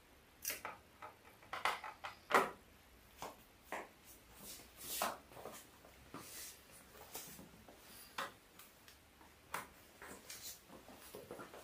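Small clear communion cups being lifted from and set down into the holes of a wooden communion tray: a dozen or so irregular light clicks and clinks, some sharp, spread over several seconds.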